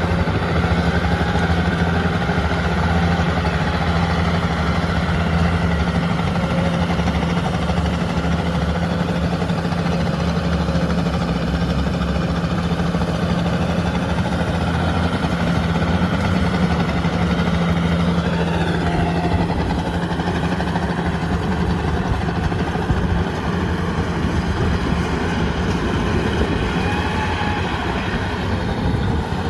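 Yanmar rice combine harvester running steadily as it works, its diesel engine and threshing machinery making a continuous drone. The engine note shifts about two-thirds of the way through.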